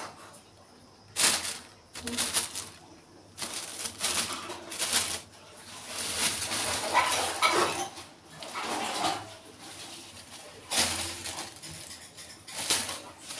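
Thin plastic bag crinkling and rustling in irregular bursts as a kitten moves and plays inside it.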